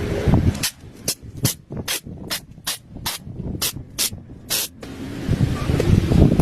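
A rapid run of about ten short hissing spray bursts, each a fraction of a second long, then a low rumbling noise near the end.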